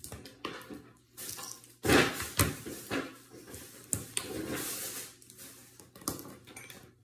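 Hard objects being handled and set down on a stone countertop: a series of sharp knocks and clatters with rustling between them.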